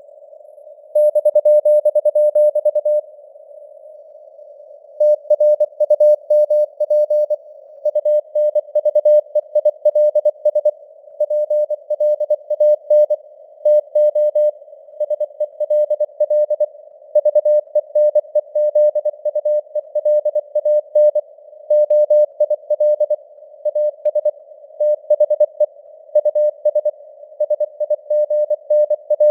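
Morse code (CW) at 24 words per minute: a single mid-pitched tone keyed on and off in dots and dashes over a faint hiss of simulated radio noise, the signal fading up and down in strength. There is a pause of about two seconds early in the sending.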